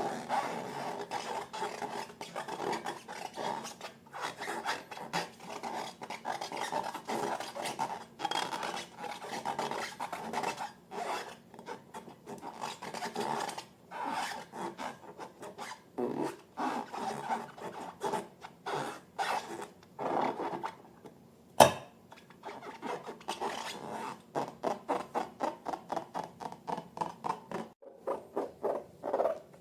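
Slime being squished and worked, making sticky, crackling squelches in quick, irregular bursts. A single sharp click stands out about two-thirds of the way through.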